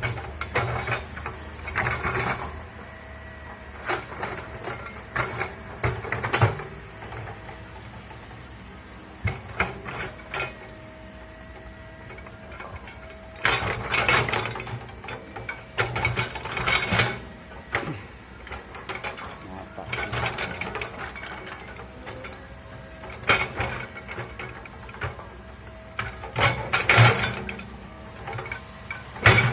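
Komatsu excavator working, its engine running steadily under irregular bursts of clanking and clattering that come every second or two, loudest about two-thirds of the way in and near the end.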